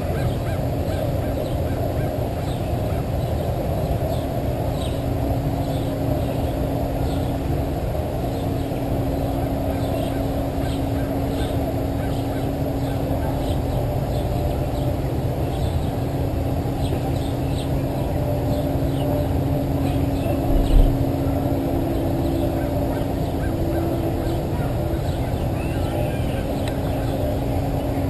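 Steady low droning noise with a constant hum, with faint, short high bird chirps repeating over it and a single low thump about three-quarters of the way through.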